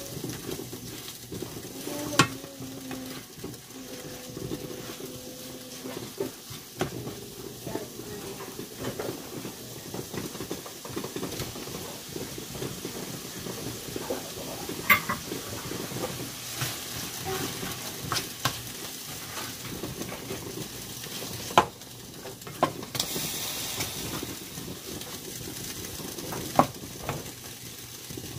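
Ground meat sizzling in a stainless steel pan while a spatula stirs and scrapes through it, with a few sharp knocks of the spatula against the pan.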